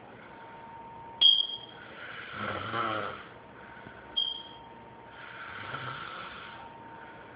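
A sleeping person snoring: two slow snoring breaths, a louder buzzing one about two seconds in and a softer one near six seconds. A short, sharp high-pitched chirp, the loudest sound, comes about a second in and again just after four seconds, each shortly before a snore.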